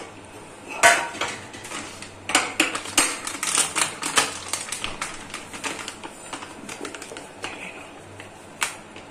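Irregular clinks and taps of steel utensils against a stainless-steel mixing bowl as ground nuts are tipped and scraped in. The taps cluster about a second in and again from two to four and a half seconds in, with one more near the end.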